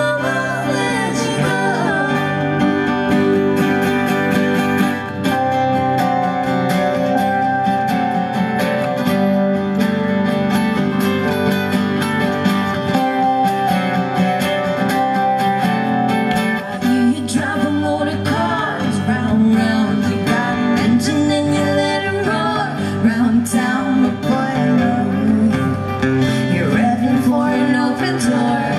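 Live music: a singer over strummed acoustic guitar and band accompaniment, playing on without a break.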